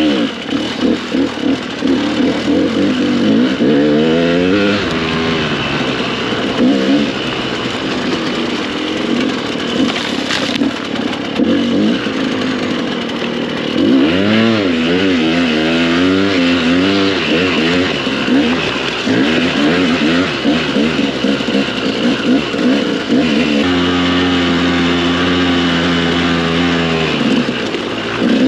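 Dirt bike engine revving up and down as the throttle is worked over rough trail. Near the end it holds a steady note for a few seconds, then drops off.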